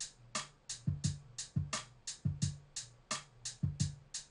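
Programmed hip-hop drum beat played back in FL Studio with a single, unlayered sample of each drum: a steady hi-hat about three times a second over a pattern of kick drums.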